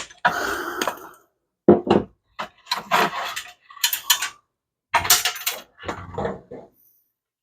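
Metal parts of a 1930 Chevrolet dash and its gauges clattering and scraping as they are handled and taken apart, in about six short, irregular bursts.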